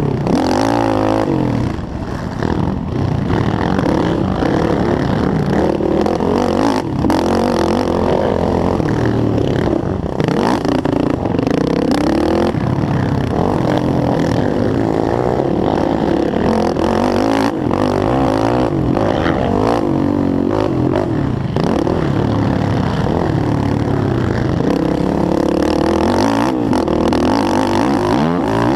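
Yamaha YFZ450R quad's single-cylinder four-stroke engine racing, its pitch rising and falling over and over as it revs and shifts, with a few short knocks along the way.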